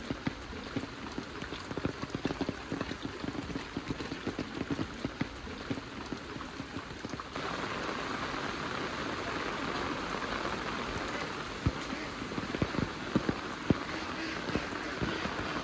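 Heavy rain falling, with a dense patter of drops striking a surface close by. About halfway through it changes abruptly to a louder, steadier hiss of rain, with a few sharp drop hits near the end.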